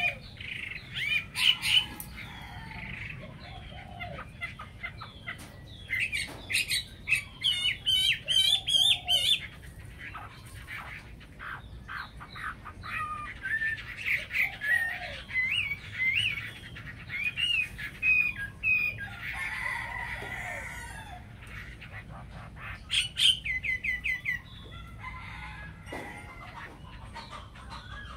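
Hwamei songbirds singing in bursts of varied whistles and fast trills. A rooster crows once, about twenty seconds in.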